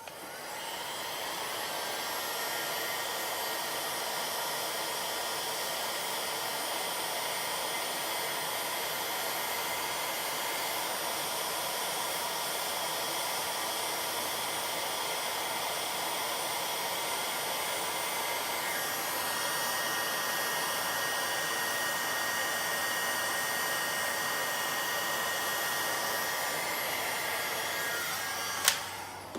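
Heat gun blowing hot air steadily, heating the adhesive that holds a touch-screen digitizer to its LCD so the two can be pried apart. It starts up at the beginning and is switched off with a click near the end.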